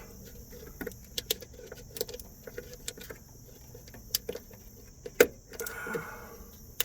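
Keys jangling and clicking as a key fob is handled, with short sharp clicks scattered through and a faint steady high hiss underneath. A brief rush of noise comes a little before the end.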